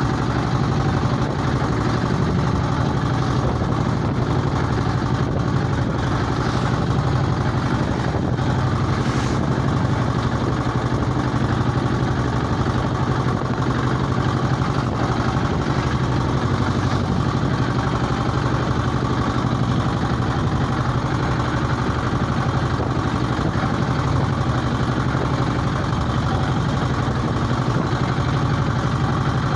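Small fishing boat's engine running steadily at one speed while the boat is under way.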